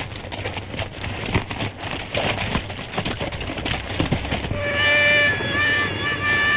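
Horses galloping, a rapid clatter of hoofbeats. Fiddle music comes in about four and a half seconds in.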